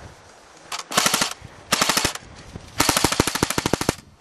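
Airsoft gun firing three short full-auto bursts of rapid clicking shots, the last and longest lasting about a second.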